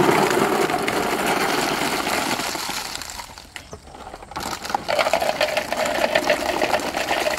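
Many small hollow plastic balls pouring out of a plastic tub in a rapid clatter, in two pours with a short lull a little before halfway.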